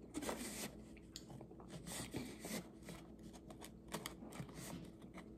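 Pringles chips and crumbs rattling and sliding inside the cardboard tube as the can is tipped up to the mouth, a run of small irregular clicks and rustles.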